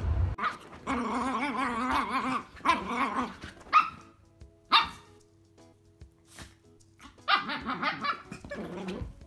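Italian Greyhound puppy growling and grumbling in play, with two short sharp barks about four and five seconds in, then more growling near the end.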